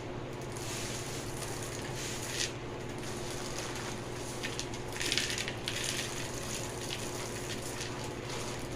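Dry beans rattling and sliding as they are sorted by hand, with louder rustles about two seconds in and again around five seconds in, over a steady low hum.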